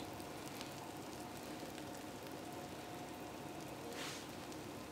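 Faint steady background hiss with a faint steady hum, and a soft brief rustle about four seconds in.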